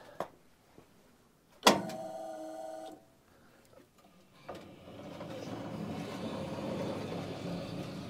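A click, then a small electric motor whirs steadily for about a second and stops. A few seconds later a longer rustling, scraping noise swells and slowly fades.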